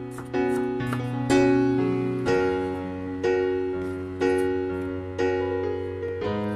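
Background keyboard music: slow piano-like chords, a new chord struck about once a second and left to ring.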